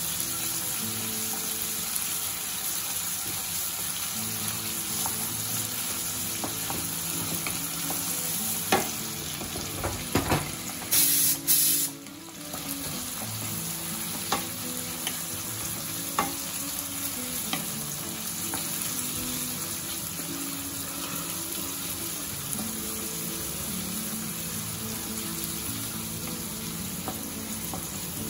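Sliced onions sizzling steadily in hot oil and ghee in a kadai, being fried until lightly reddened. A wooden spatula stirs them and knocks against the pan now and then, with a louder cluster of knocks about eleven seconds in.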